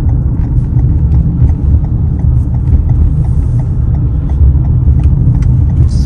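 Car driving, heard from inside the cabin: a steady low rumble of road and engine noise, with faint scattered ticks.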